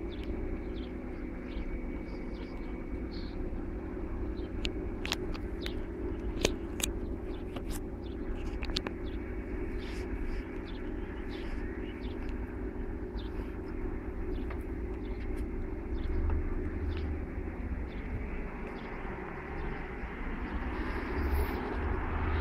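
Steady low rumble of road traffic idling and moving near a closed level crossing, with scattered sharp ticks. A rising rush builds near the end.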